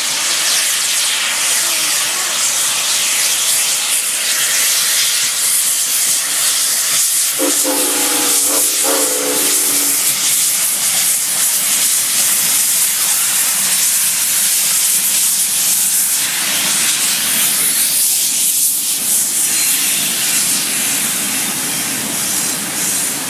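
Southern Railway No. 630, a 2-8-0 steam locomotive, passing with a steady, loud hiss of steam, and its steam whistle sounding one held chord of about two and a half seconds roughly seven seconds in.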